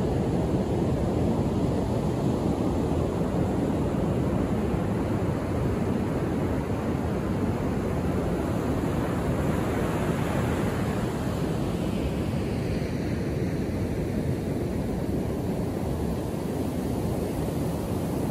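Ocean surf breaking and washing up a sandy beach: a steady rush of noise, with wind buffeting the microphone.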